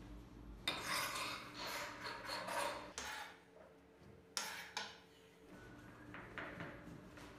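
A knife blade scraping and rasping against a floured worktop as the edges of a thin hand-rolled baklava dough sheet are cut away and the scraps chopped. The sound comes in runs of short strokes, with a sharp knock about four seconds in.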